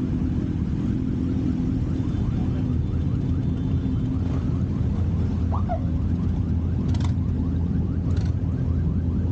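Motorcycle engines running in a large pack of bikes, a steady low rumble. Two short sharp sounds come about seven and eight seconds in.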